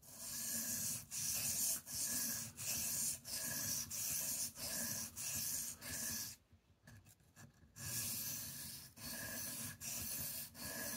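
Knife blade stroked back and forth on a wet Shapton Kuromaku 1000-grit ceramic whetstone: even scraping strokes, about one and a half a second, with a pause just after the middle before the strokes start again. The sharpening is grinding the edge to raise a burr along the whole blade.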